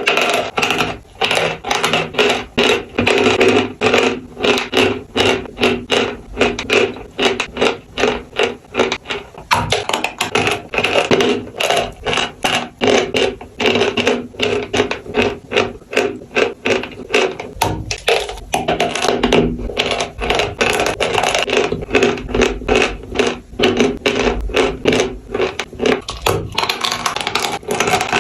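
Pieces of chalk being crunched and crumbled, a dense run of sharp crackles that keeps up throughout.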